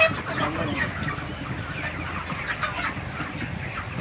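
A flock of 36-day-old broiler chickens clucking, many short calls overlapping as birds are caught and held by the legs for weighing. A sharp knock sounds right at the start.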